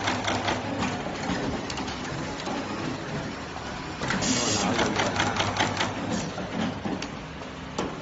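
WL-68210C multicore cable stripping and crimping machine running its cycle: rapid mechanical clicking and clacking from the crimp press and stripping heads over a steady hum, with a short hiss about four seconds in.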